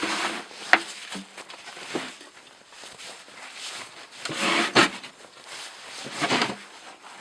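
Handling noise as a cast-iron wood stove is turned around: three bouts of scraping and shuffling, with a sharp knock near the start and a louder one partway through.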